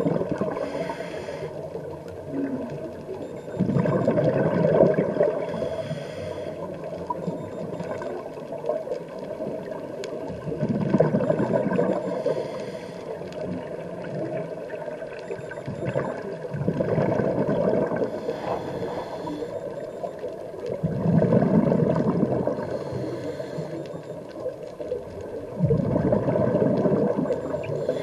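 Scuba diver breathing through a regulator underwater: a bubbling exhale about every five seconds, each lasting about two seconds, with a fainter hiss from each inhale between them.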